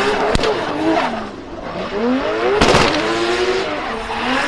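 Race car engine revving up and down again and again, its pitch rising and falling, with a sharp click about a third of a second in and a brief burst of noise a little past halfway.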